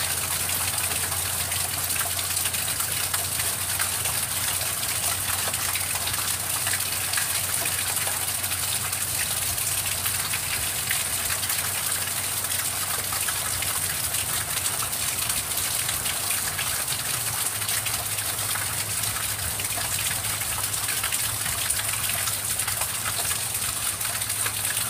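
Heavy rain pouring down steadily in a thunderstorm: a dense, even hiss flecked with countless small drop ticks, with a low steady hum underneath. No thunder.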